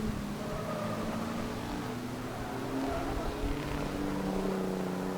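Several racing pickup trucks' engines running hard on the track at once, their pitches rising and falling and overlapping as they go by.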